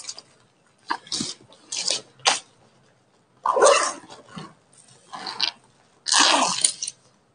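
Clear plastic packaging bag crinkling and rustling in irregular bursts as it is handled and pulled about.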